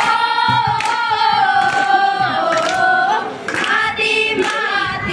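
A group of young voices singing a jingle together in unison, holding long high notes that step from one pitch to the next, with a few sharp hand claps.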